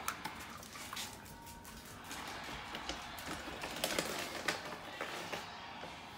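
Scattered, irregular light clicks and taps of dogs' claws on a tiled floor.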